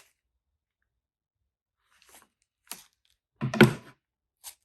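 Handling noises of a camera being taken out of its small bag: after a quiet start, a few light clicks and rustles, then a louder knock about three and a half seconds in, and one last click.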